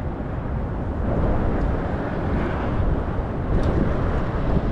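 Wind buffeting the microphone while riding the Sailnovo folding e-bike under throttle: a steady, deep rushing noise.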